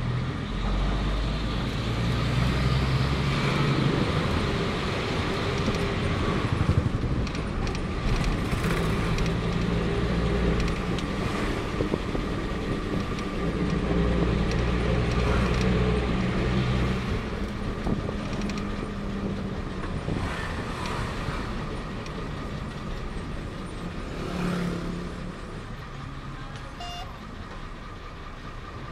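Engine and road noise heard from inside the red Thonglor passenger bus while it is moving. The engine note rises and falls several times as the bus pulls away and slows, over a constant rumble and a faint steady whine.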